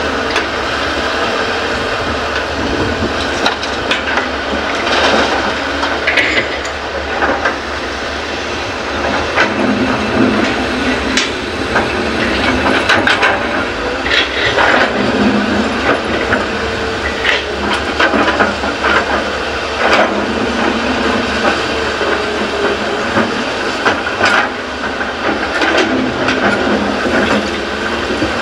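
Hyundai hydraulic excavator working: its diesel engine runs steadily under load, with irregular metallic clanks and knocks throughout as it loads fill soil into a dump truck.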